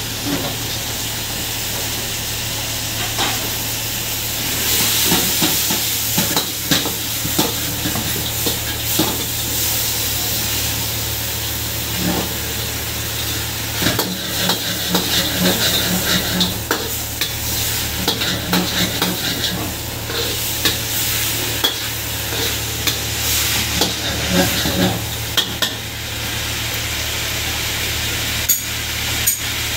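Chicken, onion and green peppers sizzling in a hot iron wok while a metal spatula scrapes and clinks against the pan in quick, irregular strokes as the stir-fry is tossed. A steady low hum runs underneath.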